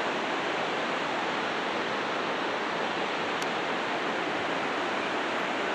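A steady, even rushing noise with no separate events in it.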